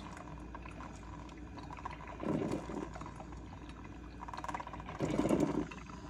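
Gevalia KA-865MW drip coffee maker percolating as it brews plain water: a steady low bubbling hiss with two louder gurgling spurts, about two and five seconds in, as the heater pushes hot water up to the drip head.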